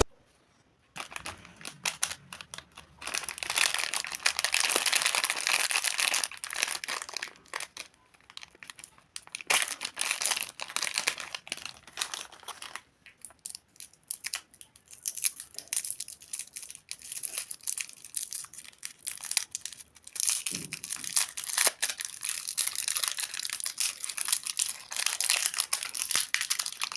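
Plastic candy and biscuit wrappers being crinkled and torn open by hand, in crackling stretches of a few seconds with short pauses between.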